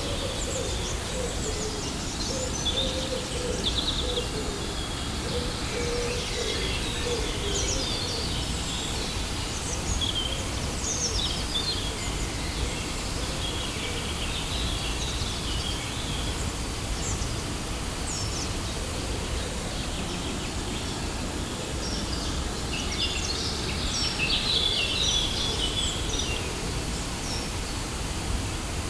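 Steady rushing of a waterfall, with small birds chirping and calling over it throughout, the calls busiest near the end.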